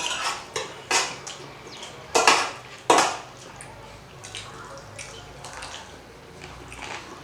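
Eating sounds during a chicken biryani meal: four sharp clicks and smacks in the first three seconds, then quieter small sounds.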